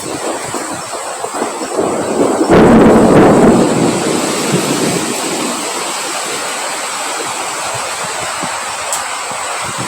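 Strong wind blowing, with one loud gust about two and a half seconds in, then a steady rush.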